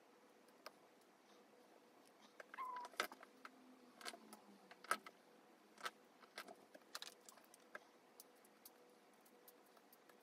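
Tiny plastic Petit Block mini-bricks clicking and tapping as they are pressed together and picked from a pile: a scatter of sharp small clicks, bunched in the middle and thinning out near the end. A short faint squeaky tone comes about a quarter of the way in.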